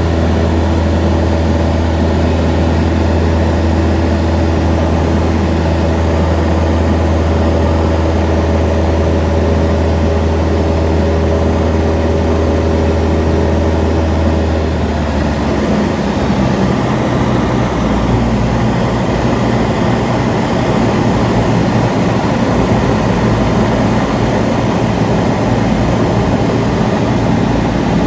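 Cessna F152's four-cylinder air-cooled engine and propeller droning steadily in flight, heard inside the cabin. About halfway through the engine note shifts to a different steady pitch, as with a change of power setting.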